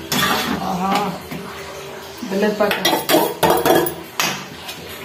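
Metal ladle scraping and clinking against the sides of a metal kadai while stirring cooked toor dal into jaggery syrup, in repeated irregular scrapes and knocks that are busiest in the second half.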